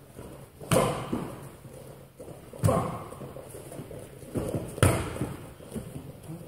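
Strikes smacking into kickboxing pads held by a coach: three loud hits about two seconds apart, each ringing out briefly in a large echoing hall.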